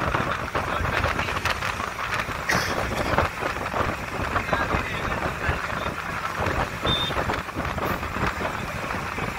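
Wind buffeting the phone microphone over the rumble of a moving vehicle, heard from an open seat on top of the vehicle at highway speed.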